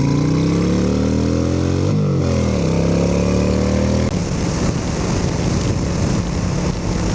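Motorcycle engine revving up hard under acceleration, its pitch climbing, dropping at a gear change about two seconds in, and climbing again. From about four seconds in, wind rushing over the microphone at highway speed drowns most of the engine, which holds a steady note underneath.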